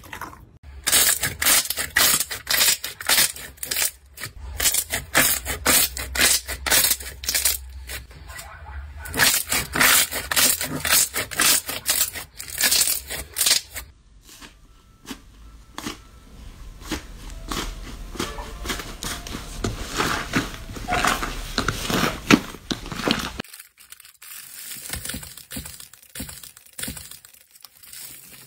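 Hands pressing and squishing slime in a series of short clips, making dense runs of sharp crackles and pops that change in character every few seconds. Near the end it turns quieter, with the crinkle of aluminium foil as a foil-wrapped lump of slime is squeezed between two palms.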